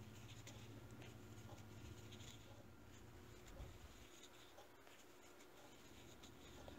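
Near silence with the faint scratching rustle of a crochet hook pulling wool yarn through stitches while single crochet is worked, in soft irregular ticks.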